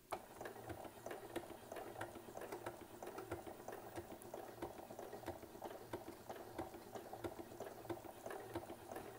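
Domestic sewing machine stitching free-motion quilting with a spring-loaded darning foot, the needle and hopping foot making a fast, steady clatter of clicks. It starts and stops abruptly, stopping just before the end.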